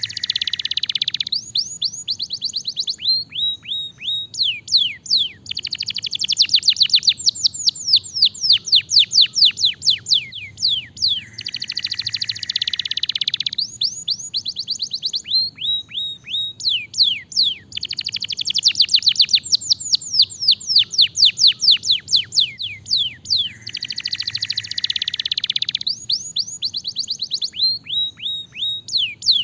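Domestic canary singing continuously: long trills of fast, high downward-sweeping notes, broken every few seconds by a lower, buzzy roll.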